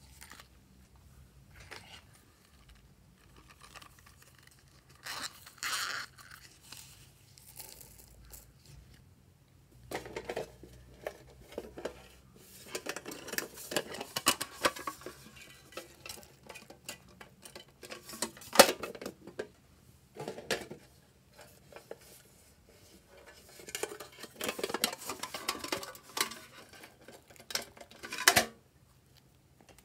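Hands handling small plastic cases and a tin box and tipping sprinkles and sequins onto slime: scattered clicks, rattles and light pattering, with a few sharper knocks, the loudest about two-thirds of the way in and another near the end.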